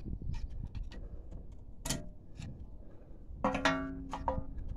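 Metal clicks and scrapes as a tool levers a rear parking brake shoe onto its bracket, with a sharp click about two seconds in. Near the end comes about a second of ringing, tuneful tones.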